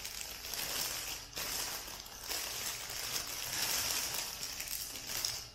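Clear plastic bag crinkling and rustling steadily as it is pulled open and handled by hand.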